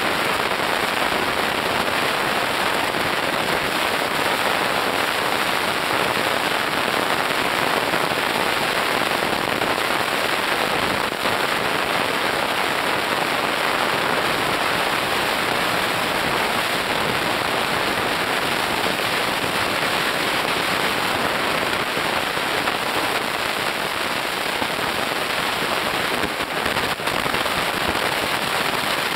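Steady, dense underwater crackling from reef snapping shrimp, a continuous fizz of tiny snaps.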